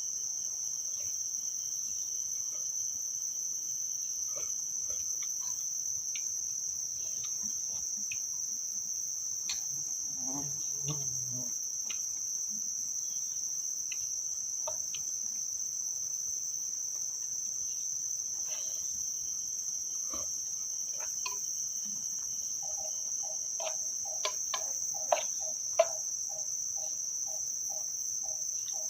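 Crickets chirping in a steady, high-pitched chorus, with scattered faint ticks. About three-quarters of the way through, a second animal joins with a rhythmic, lower pulsing call of a few beats a second, and two sharper clicks stand out.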